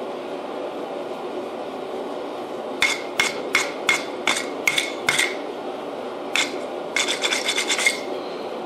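Hand hammer blows on a white-hot damascus billet on the anvil, each with a short metallic ring: about seven steady blows, a lone one a second later, then a quick flurry of lighter taps near the end. This is forge welding at welding heat to close a spot where the billet's layers were separating, over a steady background rush.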